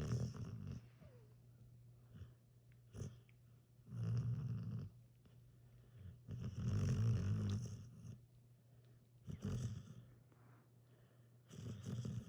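Australian Shepherd snoring in its sleep: five or six rasping snores at uneven intervals, with quieter breathing between them and the longest snore in the middle.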